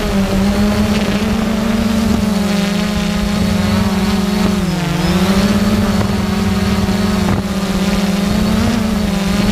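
Multirotor drone's propellers buzzing steadily as it descends, the pitch dipping briefly about halfway through and then coming back up.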